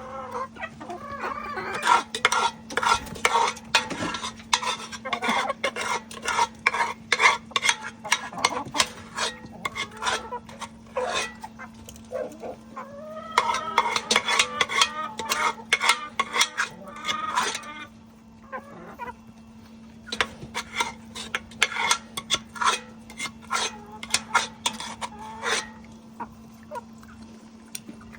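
Chickens clucking amid rapid runs of sharp clicks and taps, with a faint steady hum underneath.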